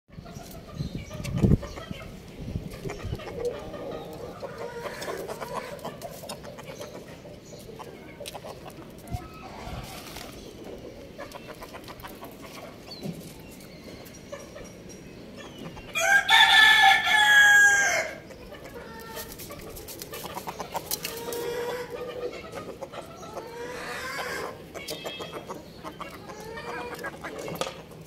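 Chickens clucking and murmuring throughout, with a sharp thump about a second and a half in. A rooster crows once, loudly, for about two seconds about two-thirds of the way through.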